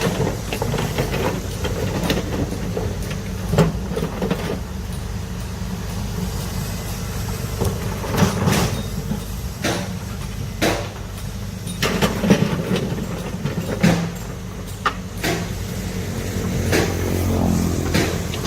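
Large excavator working: its diesel engine runs steadily under load while many sharp knocks and clanks come irregularly, several to a few seconds apart.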